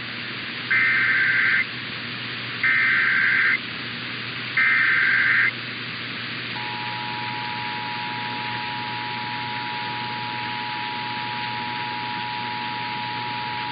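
Emergency Alert System SAME header: three short data bursts of warbling two-tone code, each about a second long and about a second apart. About six and a half seconds in, the EAS attention signal begins, a steady two-tone of about 853 and 960 Hz that holds on. All of it sits over a steady hiss, and together these open a required monthly test.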